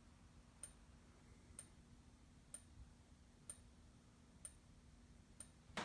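Faint fire alarm strobe ticking as it flashes about once a second, six times, each tick with a brief high-pitched chirp, over a low steady hum.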